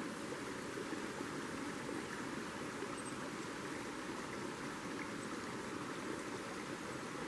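Creek water running steadily, an even rushing without gusts or breaks.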